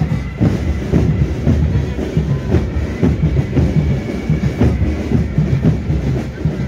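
Many boots of a marching contingent striking a wet road in unison, about two steps a second, with military band music underneath.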